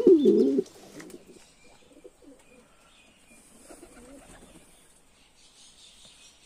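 Domestic pigeons cooing: a loud, wavering coo in the first half-second, then fainter coos about four seconds in.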